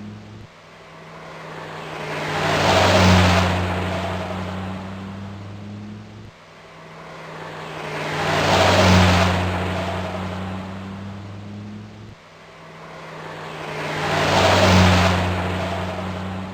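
A car driving past, heard three times in a row: each pass swells to a loud peak and fades, then cuts off abruptly as the same clip starts again.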